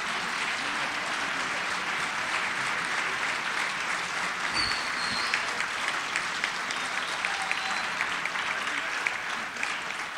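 Large audience applauding steadily, the clapping thinning out near the end.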